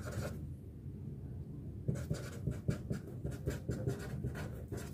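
Felt-tip marker writing on a sheet of paper: a run of short, quick pen strokes, starting about two seconds in after a quieter pause.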